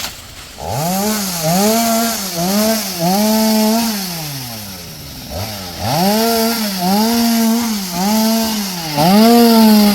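Two-stroke chainsaw throttled up and down in quick bursts, its pitch rising and dipping about twice a second. It winds down to idle about four seconds in, then is revved up again a second later in the same pattern.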